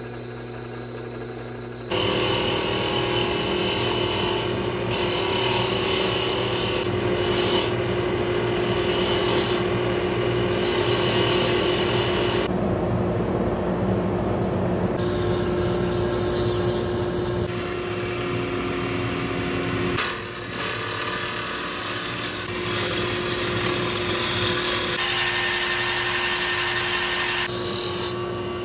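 Wood lathe and drill press working the wooden barrel of a duck call: a steady motor hum under the scraping, cutting noise of tools on the spinning wood, in short clips joined with abrupt changes every few seconds.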